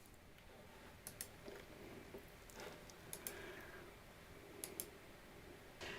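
Near silence: room tone with a few faint short clicks.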